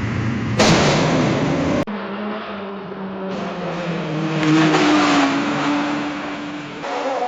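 Car sound effects cut together: a loud, harsh burst of noise about half a second in that stops abruptly about a second later, then a car engine running, swelling in loudness and pitch near the middle and falling away, before another cut near the end.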